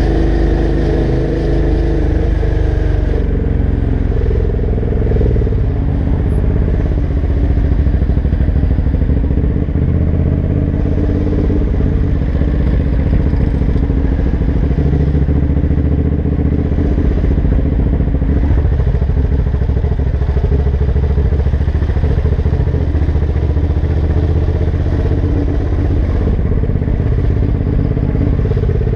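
Suzuki SV650's V-twin engine running at low speed through an aftermarket Laser exhaust, with wind rushing over the helmet-mounted microphone.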